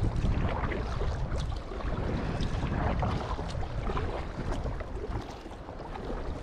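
Wind buffeting the microphone in a heavy, gusting rumble, with light splashes of a kayak paddle dipping into the water about once a second while paddling a packraft. The wind eases somewhat in the second half.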